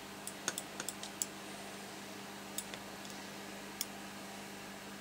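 A series of light, sharp clicks and taps: a quick cluster in the first second or so, then a few single ones, over a steady low hum.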